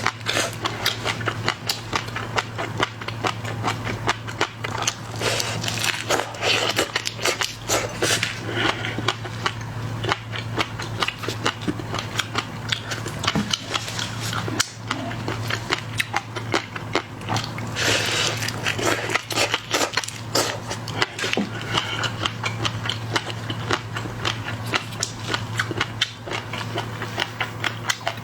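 Close-miked eating of shell-on shrimp: dense, irregular crackling and crunching as shells are cracked, peeled and chewed, over a steady low hum.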